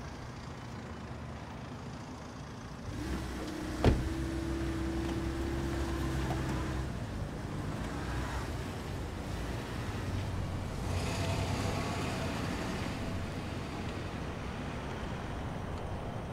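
A car's engine running in street traffic, louder from about three seconds in, with a single sharp knock just before four seconds and the engine noise swelling again later as a car moves off.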